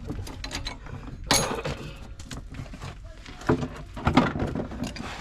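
Clicking and scraping of a plastic trim clip being worked at by hand and tool, with three sharper knocks.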